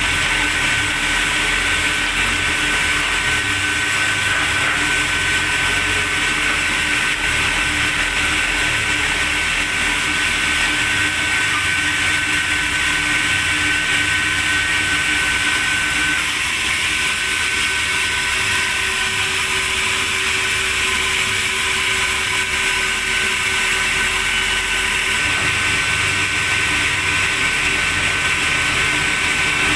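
Sawmill machinery running steadily with a high whine; about halfway through the whine drops out and a lower tone steps up in pitch.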